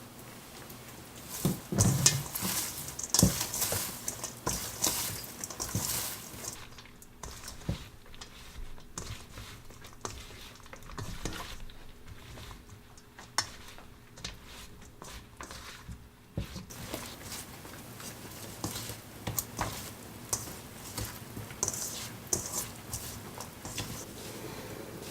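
Kitchen food-prep sounds: utensils clinking against a dish while food is stirred and tossed, with the sharpest clinks in the first few seconds.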